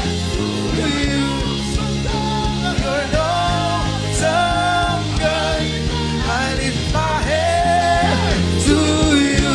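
Gospel worship music: sung vocal phrases, with no clear words, over sustained band chords and a steady beat.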